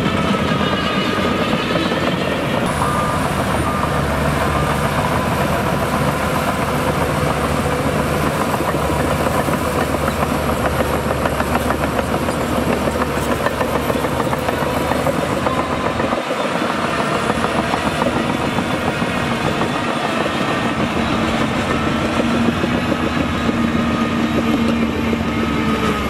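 Shantui DH17C2 crawler bulldozer working: its diesel engine running steadily under load, with the clatter and squeal of the steel tracks as it pushes dirt. The engine's pitch shifts a few times.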